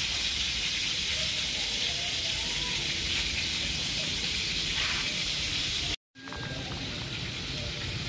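Steady sizzling hiss of oil frying food. It cuts out abruptly for a moment about six seconds in, then resumes a little quieter.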